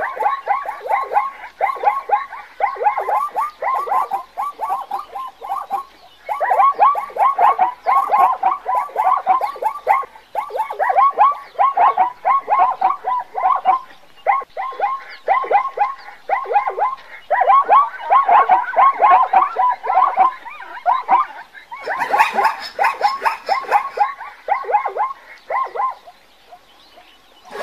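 Zebra calling: a fast run of short, barking yelps, several a second, in long bouts broken by brief pauses.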